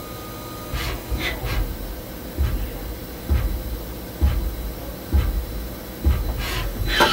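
2011 Amada Wasino G07 gang-type CNC lathe running with a steady hum, a faint high tone cutting out just under a second in, then a low thud about once a second.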